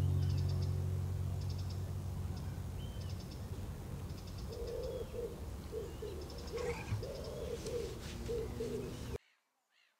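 An acoustic guitar's final chord rings out and fades over the first couple of seconds. Then birds are heard: a pigeon's low cooing in short repeated phrases, with small birds' high chirps. The sound cuts off suddenly near the end.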